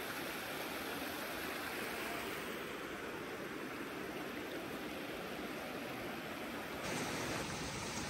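Steady rush of water spilling over rocks from a small rocky cascade and a shallow stream, with a slight change in the sound near the end.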